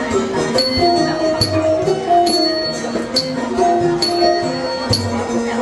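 Traditional Thai dance music: a melody over a ringing metallic percussion stroke, struck evenly a little more than once a second.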